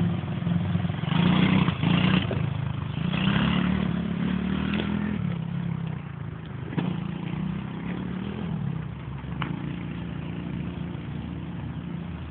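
A 110 cc ATV engine revving and running as the quad is ridden over grass. Its pitch rises and falls in the first few seconds, then it settles lower and grows quieter as the quad draws away.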